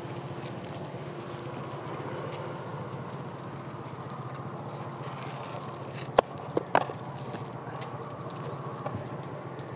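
A knife cutting a watermelon into wedges on a wooden board, with two sharp knocks about half a second apart a little past the middle, over a steady low hum.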